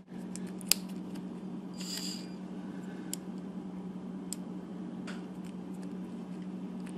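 Small clicks and taps of tiny prosthetic-finger parts being handled and pressed into place, as the keeper of an i-limb finger is worked into its slot, over a steady low hum. One sharp click a little under a second in is the loudest, and a brief scratchy squeak comes around two seconds in.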